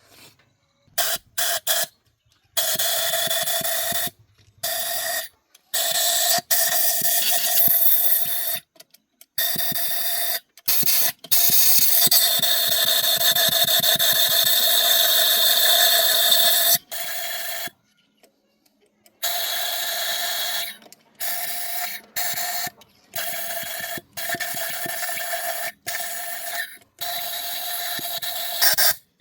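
Repeated bursts of hissing spray, each starting and stopping abruptly, with a steady tone running through it.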